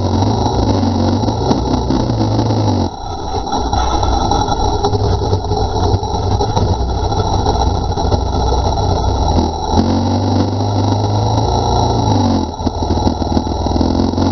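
Dirt bike engine running as the bike is ridden, its revs changing. It eases off about three seconds in, picks up again near ten seconds, and eases off once more a couple of seconds later.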